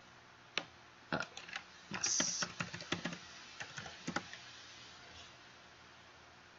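Typing on a computer keyboard: about fifteen quick key presses at uneven spacing, stopping about four seconds in.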